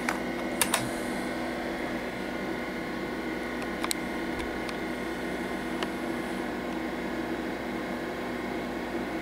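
Steady fan hum of a running IBM PC RT 6150, with a few sharp key clicks from its IBM Model M keyboard: a pair just after the start, one about four seconds in and one about six seconds in.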